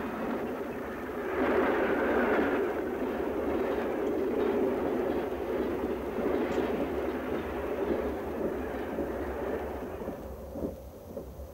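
Steady running rumble of a moving train heard inside a railway dining car. It swells about a second in and fades away near the end.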